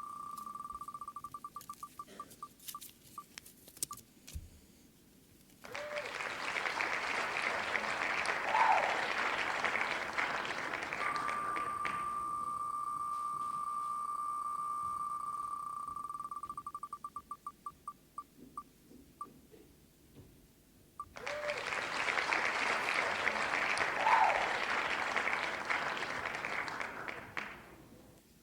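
A spinning prize wheel ticking so fast it runs together into a buzz, then slowing into single clicks until it stops, followed by a recorded applause-and-cheering sound effect with a short rising whistle. This happens twice.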